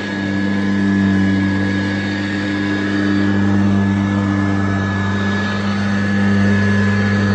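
1977 Kirby Classic III upright vacuum cleaner running: a steady motor hum with a thin high whine above it, swelling slightly in level now and then.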